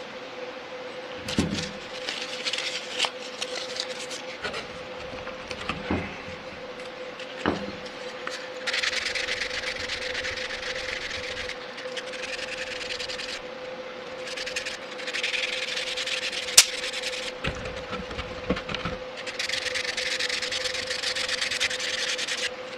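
Wet sandpaper rubbing back and forth on a small primed sheet-metal toy tractor part, in three stretches of steady scratching several seconds each. A few light knocks of the part being handled sound between them, over a steady hum.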